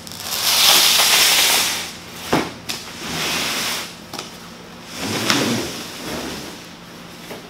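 Large cardboard shipping box scraping and rustling as it is laid down on the concrete floor and its end opened, with a couple of sharp knocks about two and a half seconds in. The first scrape is the longest and loudest.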